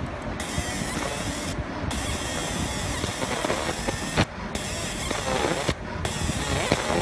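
Laser engraving machine's beam cutting into a small metal jewelry piece turning in a rotary chuck: a sparking, crackling hiss that comes in four passes with brief breaks between them.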